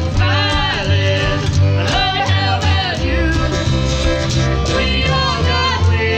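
Background music: a song with a singing voice over instrumental backing and a steady bass line.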